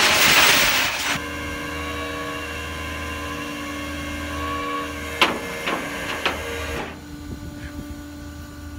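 Flatbed tow truck's hydraulics running with a steady whine and low hum while the tilted bed and winch let a Land Rover Discovery 2 down, after a loud hissing rush in the first second. A few metal clanks from the chains and bed about five to six seconds in, and the whine drops off near the end.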